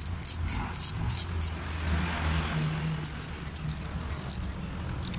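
Quick, irregular light metallic clicks from hand tools and small parts on a diesel injection pump being assembled by hand, over a steady low rumble.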